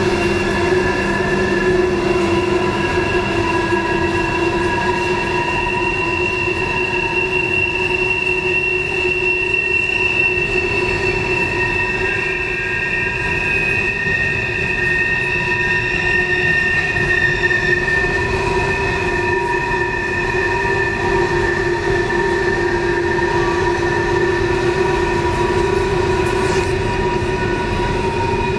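Freight train of coal hopper cars rolling past on a tight curve, its steel wheels squealing against the rails in several steady, slowly wavering tones over the low rumble of the cars: flange squeal from the curve.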